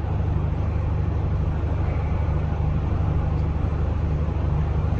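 Steady low hum with an even hiss over it, constant throughout with no distinct events: workbench background noise.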